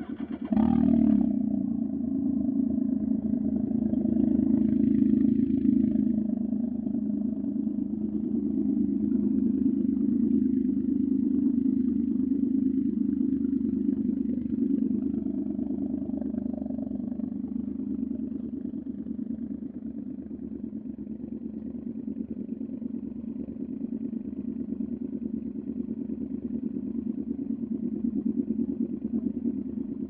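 Two Can-Am Ryker trikes idling together, the Rotax twin of a Ryker 600 through an RLS Carbon Series exhaust and the Rotax triple of a Ryker 900 through an RLS Stealth Series exhaust. The exhaust note is steady and low, and it steps up in loudness with a brief rise in pitch about a second in.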